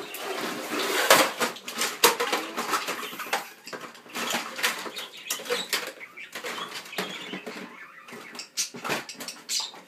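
Irregular small clicks, taps and scrapes of kitchen utensils and dishes being handled.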